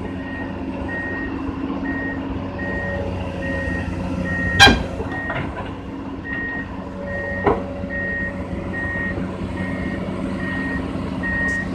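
Komatsu PC200-8 excavator's travel alarm beeping about twice a second over its running diesel engine as the machine crawls onto a steel trailer deck. The beeping pauses briefly after a loud sharp metal clank about four and a half seconds in, and a smaller clank follows near seven and a half seconds.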